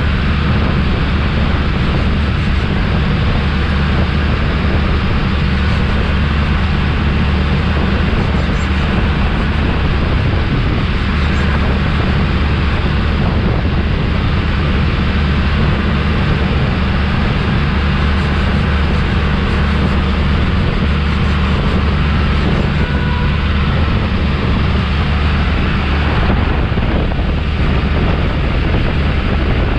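Mahindra Arjun 555 tractor's diesel engine running steadily at full throttle under way, heard from the driver's seat, with wind on the microphone.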